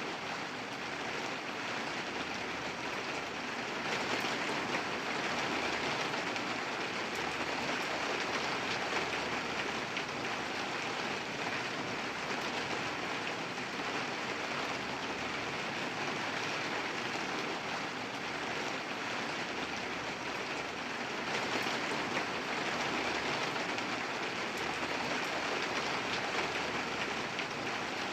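Steady rain falling, a dense even patter that swells slightly about four seconds in.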